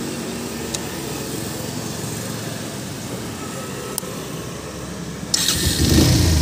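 Bajaj motorcycle engine running steadily at idle, growing louder and rougher about five seconds in.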